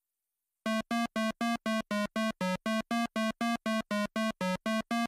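8-bit video-game-style synthesizer beeps: short buzzy notes repeating evenly about four to five times a second, alternating slightly in pitch, starting a little under a second in.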